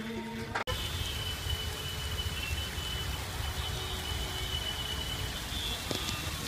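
Steady rain falling, a continuous even hiss with a low rumble under it. It comes in after a snatch of music that cuts off abruptly under a second in.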